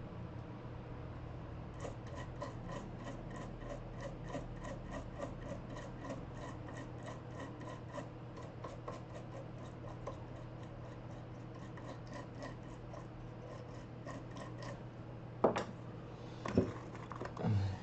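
Quick, light scratching strokes on a hard surface, about three a second, over a steady low hum, followed near the end by three louder knocks of something being handled.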